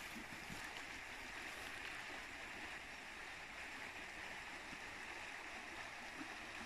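Shallow river water running, a steady soft rushing with no distinct splashes.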